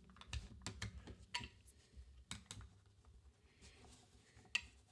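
Faint, scattered clicks and taps of hard plastic trading-card cases and acrylic display stands being handled and set down on a table.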